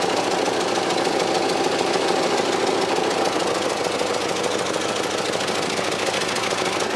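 1995 Cadillac Fleetwood's 5.7-litre V8 running steadily through worn-out, leaking mufflers: a loud, rough exhaust drone, with the exhaust escaping under the car rather than out the tailpipes.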